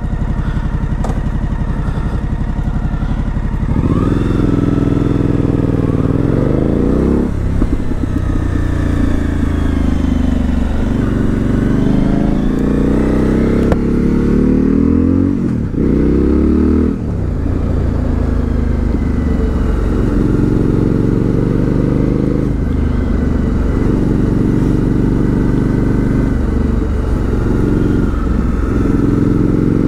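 Suzuki V-Strom 1050XT's V-twin engine pulling away and accelerating up through the gears. The note starts rising about four seconds in and climbs in several sweeps, each broken by a brief drop at a gear change, then settles into steady cruising with a few short dips.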